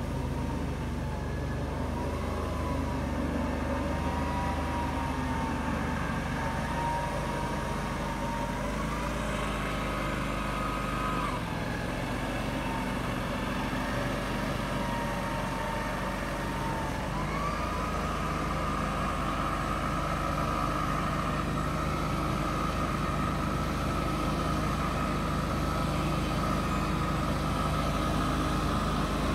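Amphibious ATV's engine running steadily as it drives through water, with a whine that steps up in pitch about a third of the way in, drops back, then rises again a little past halfway and holds.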